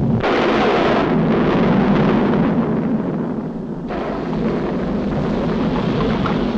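Volcano eruption sound effect in a vintage animated cartoon: a loud, continuous rumbling roar that shifts in texture about a second in and again after about four seconds.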